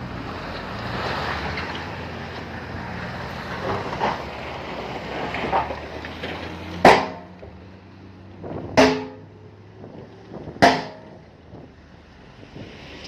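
Heavy earthmoving machinery running with a steady rumble, then three loud metallic clangs about two seconds apart, each ringing briefly.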